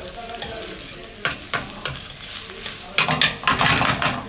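Fried rice with egg, chicken and vegetables sizzling in a steel wok while a metal utensil stirs it, with a few sharp clacks against the pan and a busier run of scraping and tapping about three seconds in.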